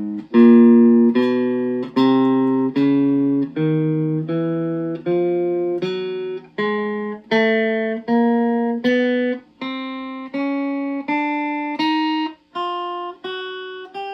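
Electric guitar through a BOSS Katana Mini amp playing a slow chromatic 1-2-3-4 finger exercise with alternate picking. Single clean notes sound evenly, about one every 0.7 s, stepping up fret by fret and string by string from the low strings toward the high.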